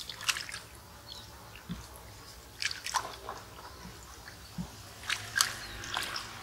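Hands splashing and swishing in shallow stream water in three short bursts, washing a freshly caught catfish.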